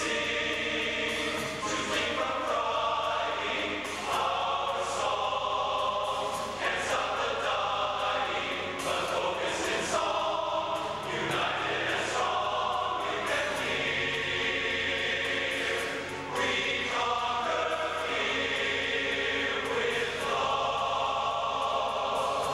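A large men's chorus singing together in harmony, its chords shifting every second or two.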